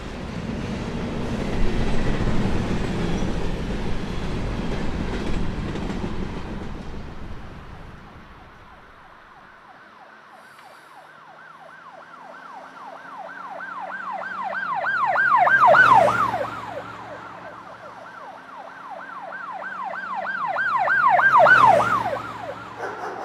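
A low rumble of passing traffic fades away over the first several seconds. Then an emergency vehicle siren sounds in a fast, repeating rising-and-falling yelp, swelling loud twice: about two-thirds of the way in and again near the end.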